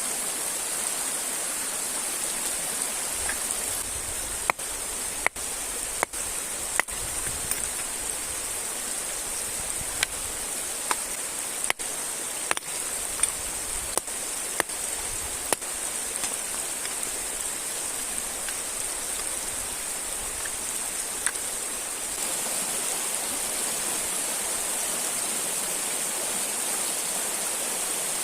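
Steady rushing of a river and waterfall, a dense hiss. Scattered sharp clicks and a few brief cut-outs break it during the first half, and it grows slightly louder about two-thirds of the way through.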